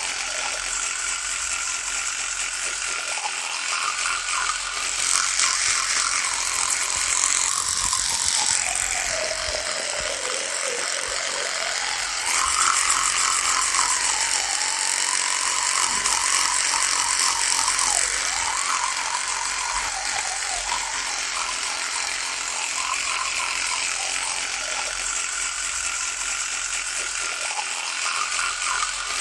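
Electric toothbrush running with a continuous buzz. Its tone sinks lower about a third of the way through, then comes back up and runs a little louder for a few seconds.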